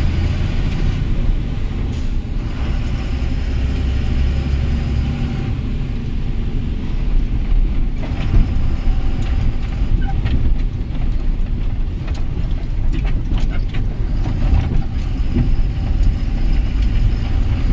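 Heavy truck's engine running with a continuous low rumble of engine and road noise inside the cab while driving. From about the middle on, short knocks and rattles come through as the cab goes over the rough road.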